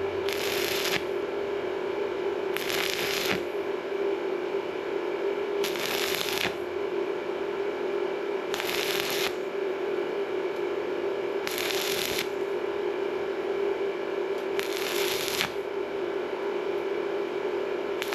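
Stick-welding arc from a 2 mm 6013 electrode at 60 amps on thin sheet metal, struck in short stitches: a crackling burst of about half a second roughly every three seconds, six times, as the electrode is rested and lifted for each stitch weld. A steady hum runs underneath throughout.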